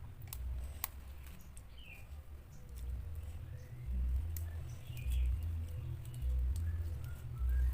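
Close-miked chewing of a mouthful of raw young mango leaves, with wet mouth clicks and smacks and deep chewing thuds that come about once a second in the second half.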